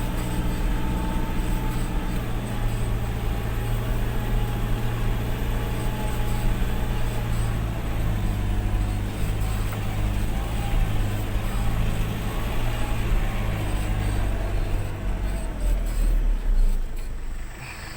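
Vehicle engine running under way, its low drone shifting pitch partway through, then dropping sharply in level near the end.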